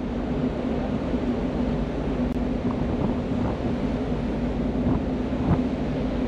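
Steady machinery hum of the Spirit of Tasmania ferry under way, heard on its open deck, with wind rumbling on the microphone. A couple of faint knocks come near the end.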